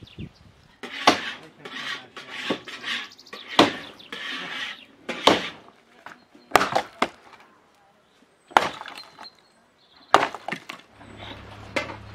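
Dry, weathered wood being snapped and broken apart: a series of sharp, irregular cracks with splintering crackle between them.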